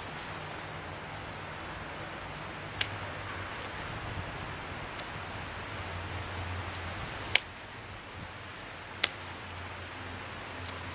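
Pruning shears snipping fruit-tree branches back to stubs: three sharp clicks, one about three seconds in and two more about seven and nine seconds in, with a few fainter ticks over a steady low hiss.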